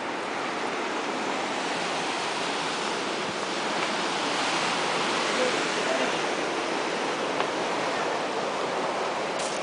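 Ocean surf breaking on rocks below, a steady wash of noise that swells slightly about halfway through.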